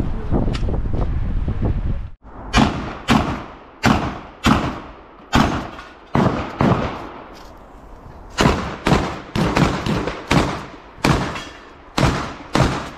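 Wind noise on the microphone, then about fifteen gunshots fired at steel targets from about two seconds in. The shots come in singles and quick pairs, each followed by a short decaying tail.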